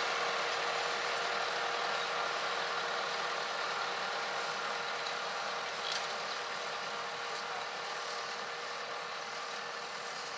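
Massey Ferguson 3070 tractor running steadily as it pulls a Nicholson scruffler through beet rows, with a steady hum and mechanical rattle from the steel cultivator tines. One short click about six seconds in.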